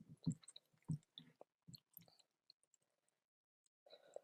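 Close-miked chewing: soft, irregular wet clicks and squelches of a mouth eating. They thin out about halfway through into near silence, with a faint sound just before the end.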